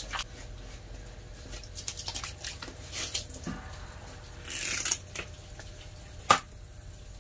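Wet handling sounds of rockfish being shifted about on a plastic cutting board by gloved hands: scattered taps and squelches. There is a brief hiss past the middle and one sharp knock near the end, the loudest sound.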